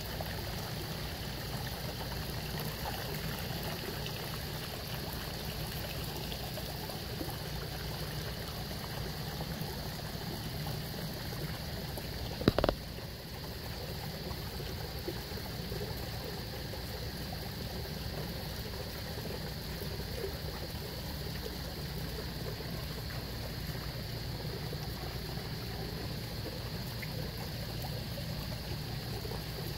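Water pouring steadily from a pond waterfall of PVC pipe outlets and splashing into the koi pond. A single sharp knock cuts through about twelve seconds in.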